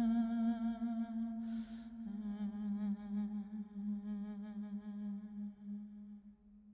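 Closing music: a held, wavering low note with overtones, a short airy swell about a second and a half in, then the note shifts slightly and fades out near the end.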